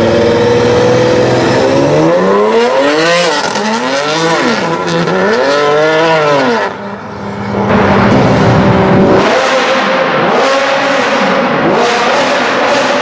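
BMW 3 Series Touring (E91) wagon's engine revved hard three times in quick succession, the pitch sweeping up and down, as the car pulls away. After a brief dip, a different car's engine runs steadily with two short revs.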